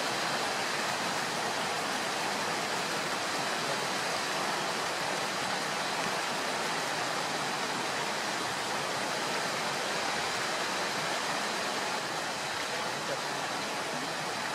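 Waterfall rushing, a steady, even noise of falling water, a little softer for the last couple of seconds.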